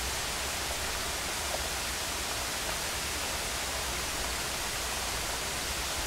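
Steady rushing of a waterfall pouring into a pool, an even wash of water noise.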